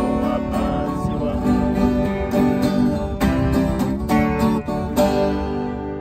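A viola caipira and an acoustic guitar play the closing strums of the song. The last few chords are struck about three, four and five seconds in and left to ring out.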